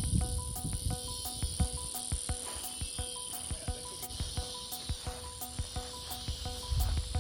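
Background music with a steady beat of short repeated notes, over a continuous high-pitched insect drone like crickets or cicadas.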